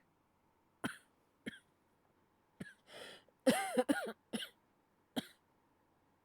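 Acted coughing in a man's voice: a cold-sufferer's short coughs about a second apart, with a harder fit of several coughs about three and a half seconds in.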